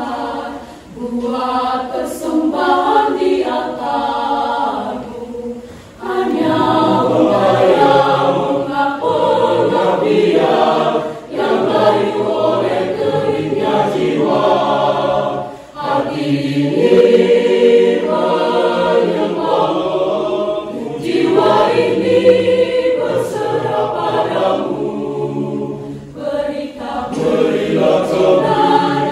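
Mixed youth church choir singing a Christian song in Indonesian, sung in phrases with short pauses for breath between them.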